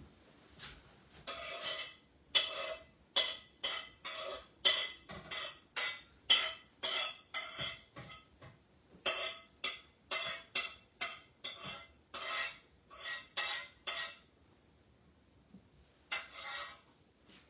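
Metal utensil scraping and clinking against a pot or pan in quick, irregular strokes, about two a second. The strokes pause for a couple of seconds near the end, then come once more.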